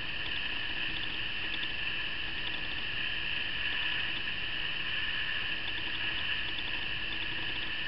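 Steady hiss with a faint hum: room tone and recording noise, with no distinct event.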